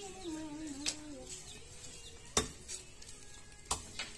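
A knife blade knocking and clinking against a wooden log chopping block while a plucked chicken is cut up: about four sharp knocks, the loudest about halfway through.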